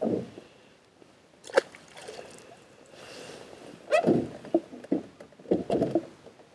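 Handling noise aboard a small fishing boat, with water sloshing against the hull: a sharp click about a second and a half in, then a run of knocks and thumps as gear at the bow and the trolling motor handle are worked.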